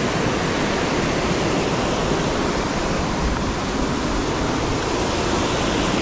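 Large waterfall's top cascade, water rushing over the rock lip and dropping into the gorge: a loud, steady, unbroken rush of falling water.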